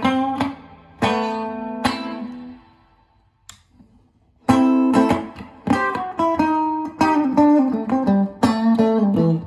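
Solo guitar played unaccompanied. Plucked chords ring out and die away to a pause of almost two seconds, then picked single notes and chords start again about four and a half seconds in.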